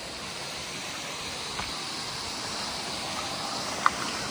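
Small waterfall pouring into a pool: a steady rush of falling water. A single sharp click near the end.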